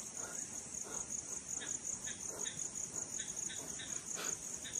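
Crickets chirping in a steady, high-pitched chorus with a rapid, even pulse.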